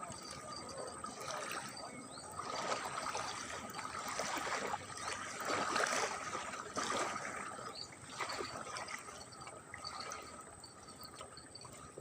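Water trickling and splashing, swelling louder for a few seconds in the middle, with a faint steady high insect-like whine and small chirps behind it.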